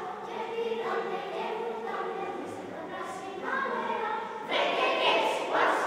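A children's choir singing unaccompanied, the voices turning suddenly louder and brighter about four and a half seconds in.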